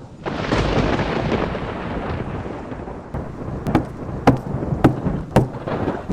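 Thunder over steady rain: a loud clap about a quarter second in rumbles and fades over a few seconds. Then come four sharp knocks about half a second apart.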